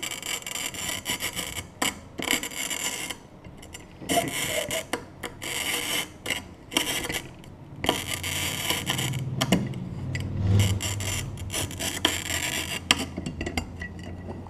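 A bottle cutter's glass-cutting wheel, oiled with WD-40, scoring a glass wine bottle as the bottle is turned against it by hand. It makes a gritty, crackling scratch in repeated stretches with short pauses where the hands shift to turn the bottle further.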